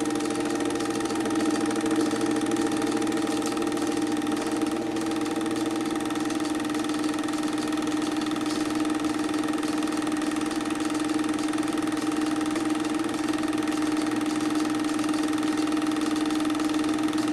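Film projector running: a steady whirring motor hum with a fine, even mechanical rattle, unchanging throughout.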